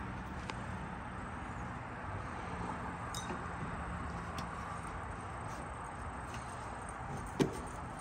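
Air-conditioning unit running while it is being charged with refrigerant: a steady low hum and hiss with a few faint ticks, and one short sharp sound near the end.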